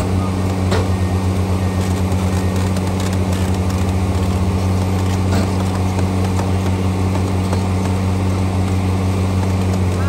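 Heavy diesel engine of earthmoving machinery running steadily, a loud constant low hum that pulses briefly in the middle.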